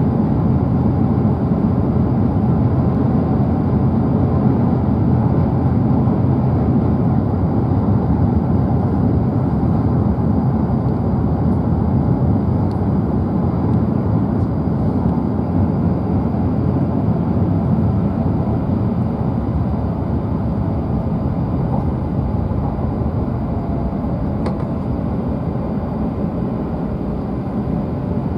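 Running noise of a W7 series Shinkansen heard inside the passenger cabin: a steady low rumble from the train at speed, easing slightly toward the end.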